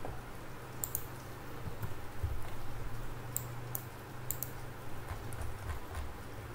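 Scattered sharp clicks of a computer mouse, several over a few seconds, over a low steady hum.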